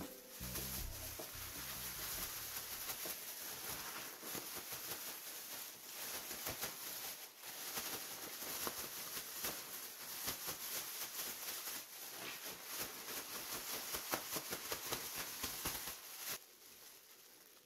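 Thin plastic bag crinkling and rustling in quick, irregular crackles as gloved hands shake and squeeze powder-coated greens inside it; it stops about a second before the end.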